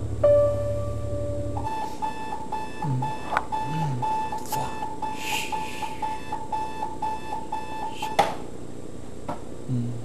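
An electronic alarm clock beeping in a rapid, steady, repeating pattern, cut off by a click about eight seconds in. A low pulsing buzz comes before the beeping, in the first second or two.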